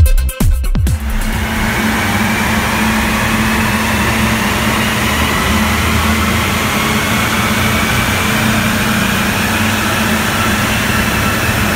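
Remapped Audi A3 2.0 TDI four-cylinder diesel under load on a rolling road: the engine and the tyres on the rollers give a steady rushing noise with a low hum, and a whine rises slowly as the revs climb through a power run. Electronic music plays for about the first second and then stops.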